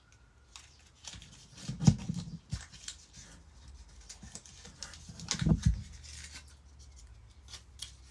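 Hands handling a small stubby screwdriver and its packaging: scattered clicks and light taps, with two louder knocks about two seconds in and again after five seconds.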